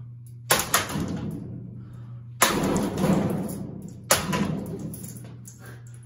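A baseball bat striking a ceiling fan's blades and housing: a quick double hit about half a second in, then two more hits about two seconds apart, each followed by a rattle that dies away.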